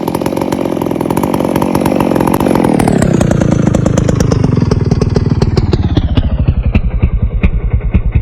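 Neotec two-stroke chainsaw engine running at high speed, then dropping back over a few seconds to a steady idle with slow, even firing.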